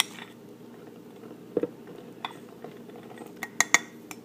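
A metal spoon clicking against a glass mixing bowl as bread flour is scraped out into a bread machine pan: a few sharp clicks, with a quick cluster of them near the end, over a low steady hum.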